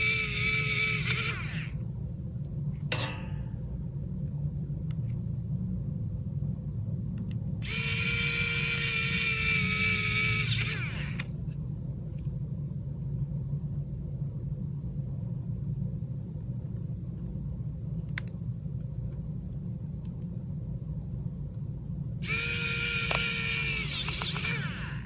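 Small electric precision screwdriver whirring in three bursts of two to three seconds each, driving tiny phone screws back in. The whine holds a steady pitch, and a low steady hum runs underneath.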